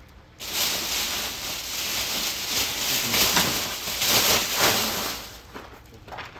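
A loud hissing rush, like escaping air or spray, starts suddenly about half a second in. It swells and eases for about five seconds, then dies away.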